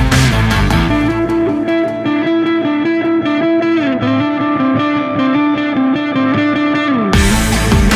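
Loud background music. The beat drops out about a second in, leaving sustained pitched instrument lines, and the full beat returns near the end.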